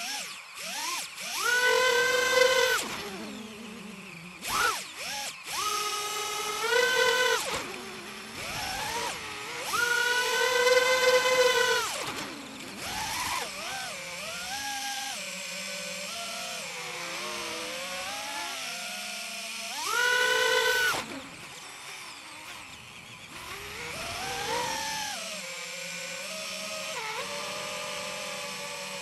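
FPV quadcopter's brushless motors and 5-inch three-blade propellers whining in flight. The pitch rises and falls with the throttle, with several loud full-throttle punches; the longest, about ten seconds in, lasts a couple of seconds.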